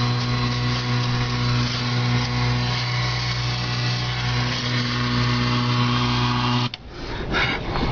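A steady low electrical-sounding buzz with a hum under it, which cuts off suddenly about seven seconds in and leaves a rough rushing noise.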